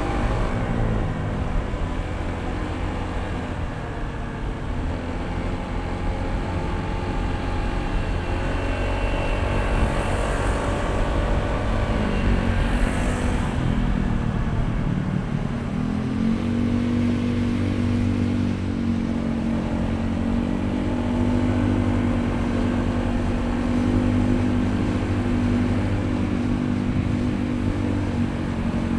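Honda ADV160 scooter's single-cylinder engine running while riding: the engine note drops just after the start, holds, eases off about halfway through, then picks up again and holds steady.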